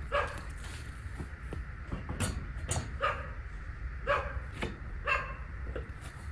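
A dog barking, several short barks spaced irregularly, over a low steady hum.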